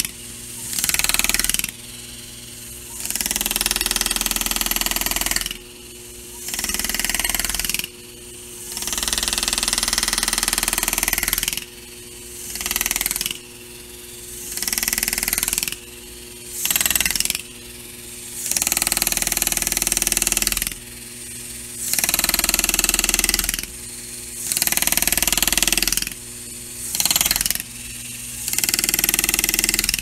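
Pneumatic engraving handpiece driving a graver into a metal door handle in more than a dozen start-stop bursts, each half a second to three seconds long, with a softer hum in the pauses: the engraver is cutting fill and leaf detail into the scrollwork.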